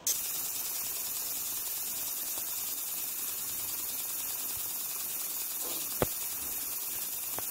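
JPT MOPA 100 W fiber laser engraving aluminium: a steady high-pitched buzzing hiss that starts abruptly, with one sharp click about six seconds in.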